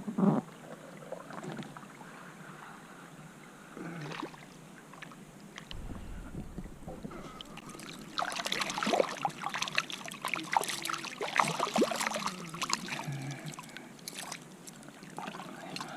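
Water splashing and sloshing in a shallow creek, with a thump at the start and a busy stretch of splashes about halfway through.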